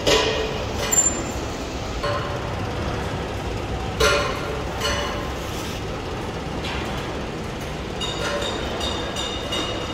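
Machine-shop noise: a steady low hum with metal clanks and knocks every second or so, each ringing briefly, the loudest near the start and about four seconds in.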